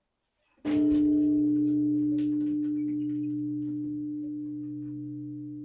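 A bell struck once, about half a second in, its tone ringing on with several overtones and slowly fading.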